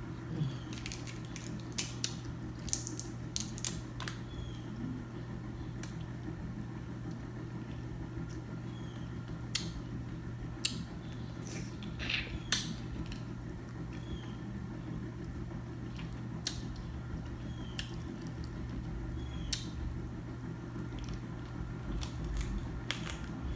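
Close-miked eating: scattered wet smacks and clicks of a person chewing and sucking on seafood boil held in the hand, over a steady low hum.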